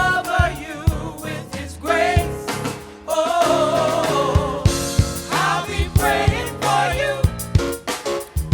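Gospel song with singing over a steady drum beat and bass.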